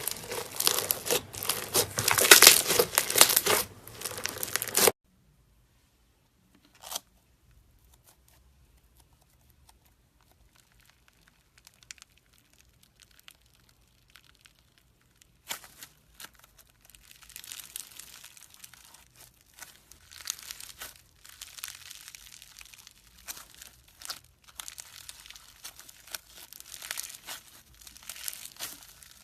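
Slime being squeezed and stretched by hand, a dense crackling that stops abruptly about five seconds in. After a near-silent stretch with a single click, quieter crackling starts again about halfway through and carries on.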